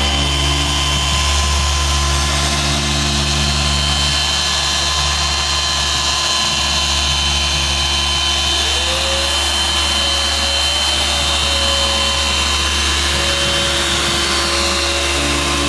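Dual-action orbital polisher running steadily, its foam pad working polish over a car's painted hood. It makes a constant motor whir, with one tone wavering slightly from about halfway through.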